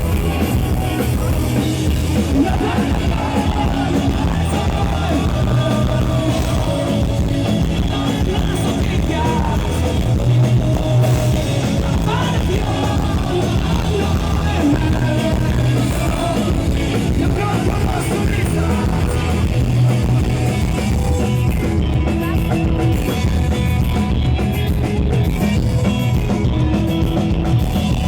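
A rock band playing live, with guitars, bass and drums driving steadily under a sung vocal line.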